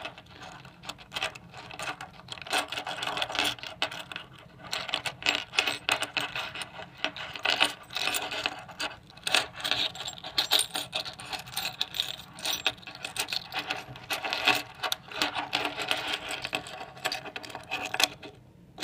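Metal keys on a steel split ring jingling and clinking, with many irregular small clicks as the ring is worked around onto a small circuit board; the clinking stops briefly near the end.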